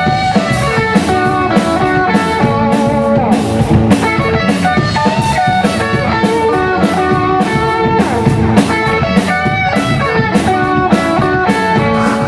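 Rock band playing: electric guitars and electric bass over a drum kit keeping a steady beat.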